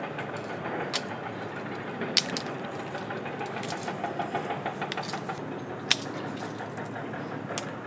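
Hard sea snail shells clicking and knocking against each other as they are handled and dropped into a coconut-husk container: a few sharp, scattered clicks over a steady background hiss.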